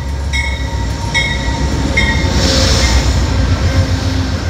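Amtrak GE Genesis P42DC diesel locomotive passing close by at slow speed as it pulls in, its engine rumbling low, with three strokes of its bell in the first two seconds and a brief hiss in the middle.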